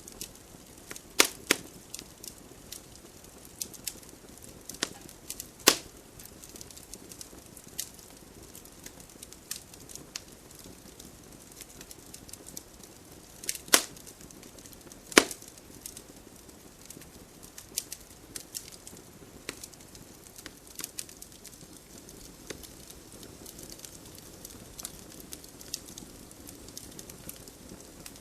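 Campfire burning: wood crackling with a steady faint hiss and irregular sharp pops, the loudest about a second in, near six seconds, and twice around fourteen to fifteen seconds.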